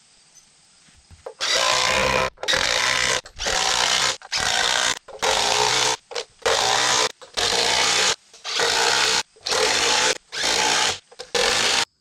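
A hand tool or power tool working on a wooden joist in about ten short, even bursts, each under a second long with brief pauses between, starting about a second and a half in and stopping sharply just before the end.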